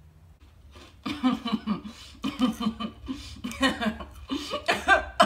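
A woman breaks into crying about a second in: wavering sobs in short rhythmic pulses.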